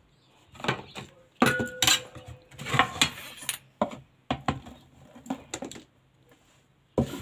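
A dish knocking and scraping against the rim of a metal cooking pot as sliced onions are tipped in: about a dozen irregular clinks and knocks, one ringing briefly about a second and a half in.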